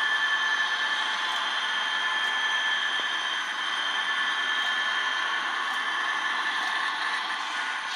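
Three HO scale model diesel locomotives running along the track: a steady high-pitched whine over an even rolling hiss, with a few faint clicks.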